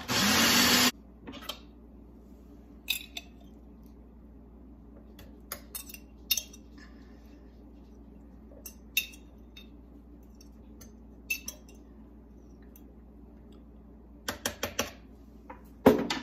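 A food processor runs briefly and cuts off about a second in. Then a spoon clinks against a glass jar and the processor bowl every few seconds as pickles are spooned in, with a sharper knock near the end.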